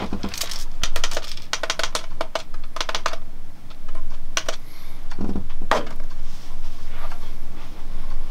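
Hands handling small hard objects: a quick run of sharp clicks and clatters for the first three seconds, then a few louder, separate knocks around the middle.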